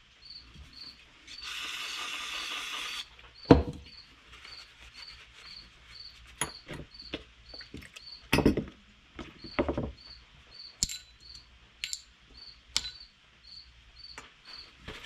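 Bench work on a small-engine carburetor: a short hiss of about a second and a half near the start, then scattered knocks and clicks of metal parts and a plastic bucket being set down on a wooden workbench, the sharpest about three and a half seconds in. A cricket-like chirp repeats faintly, about two to three times a second, throughout.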